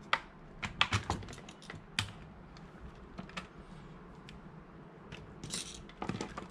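Irregular sharp clicks and light clatter of plastic plugs, cables and multimeter test leads being handled, with a cluster of clicks in the first two seconds and more near the end.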